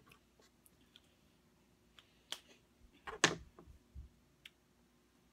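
Scattered light clicks and taps from eating baby food with a spoon out of a small plastic cup, the loudest a little after three seconds in.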